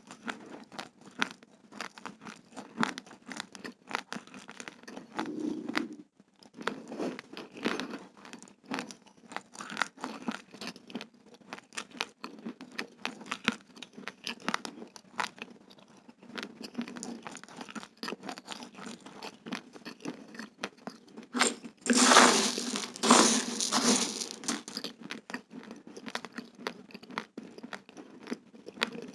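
Raw uncooked fragrant rice grains crunching between the teeth as they are chewed close to the microphone: a steady run of sharp, dry cracks, growing louder and denser for about two seconds around twenty-two seconds in.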